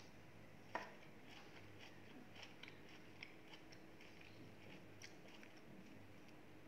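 Faint crunchy chewing, a run of small irregular crackles as food is eaten, with one sharp click about a second in.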